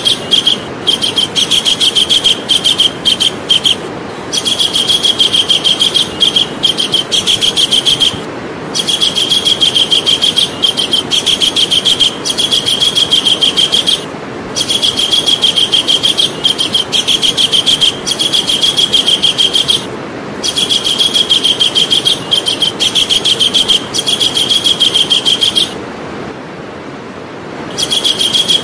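Javan kingfisher calling: long runs of fast, high, repeated notes. The runs break off for short pauses every few seconds, with a longer pause near the end, over a steady background hiss.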